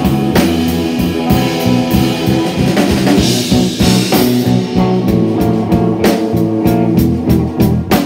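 Live rock band playing an instrumental passage: electric guitar, electric bass and drum kit, with a steady drum beat.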